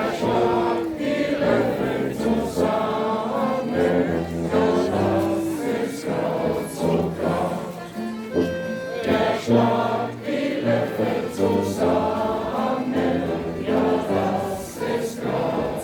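A group of people singing together to live folk-music accompaniment.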